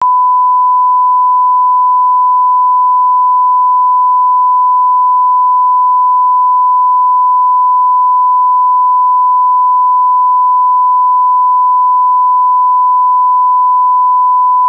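Broadcast reference test tone: a single, pure, unwavering 1 kHz sine tone played over colour bars, as used to line up audio levels at the head of a tape.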